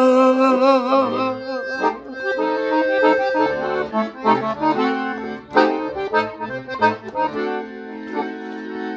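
Piano accordion playing a melody on the treble keys over low bass notes.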